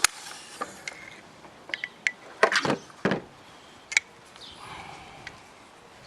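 Clicks and knocks of the polymer and metal parts of an FN PS90 rifle being handled and separated during disassembly, with a group of louder clacks about halfway through and a softer rubbing near the end.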